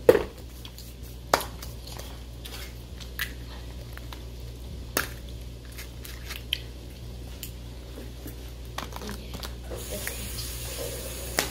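Hollow plastic Easter egg being handled and filled, its two halves clicking and snapping together: a scattering of short, sharp plastic clicks and taps, the loudest right at the start, over a low steady hum.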